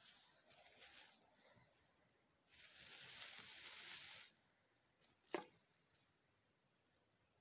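Faint mouth noises of eating a lemon: a slurping hiss of sucking on the lemon for about two seconds, then a single sharp click.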